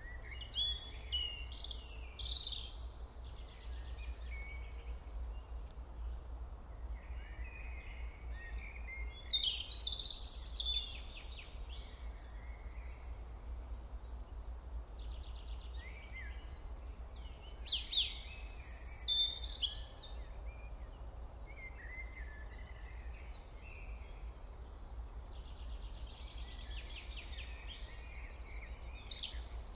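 Birds chirping in short bursts of rapid calls that come back every eight seconds or so, over a steady low hum.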